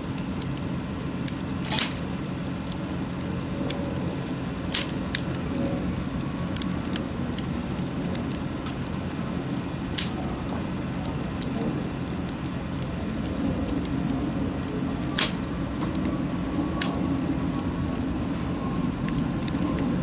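Wood bonfire crackling, with a handful of sharp, louder pops spread irregularly over a steady low rush.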